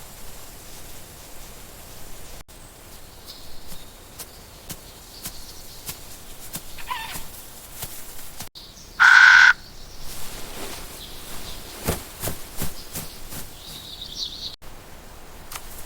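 Outdoor rural ambience with scattered bird calls, one loud, short, harsh call about nine seconds in, and light clicks and taps in between.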